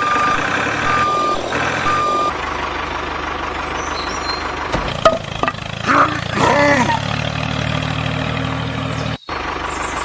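Truck engine running steadily, with a reversing alarm beeping three times about a second apart at the start. A short voice-like gliding exclamation and a few sharp clicks come in the middle.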